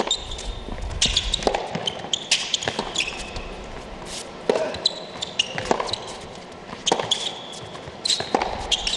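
Tennis rally on an indoor hard court: racket strings striking the ball, alternating with the ball bouncing on the court, about one or two strokes a second. Brief high squeaks of tennis shoes on the court surface follow several of the strokes.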